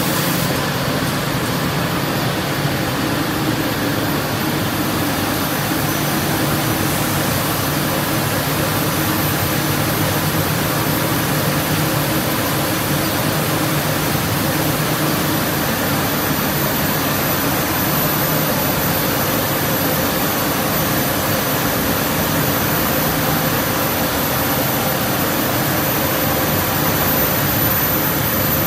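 Motimac S6 brush sander running: its motors and sanding brushes make a steady mechanical din, with a few thin steady tones over it.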